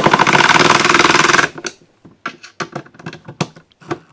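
A cordless impact driver hammers a screw home with a loud, fast rattle that stops about a second and a half in. A scattered run of sharp clicks and knocks follows.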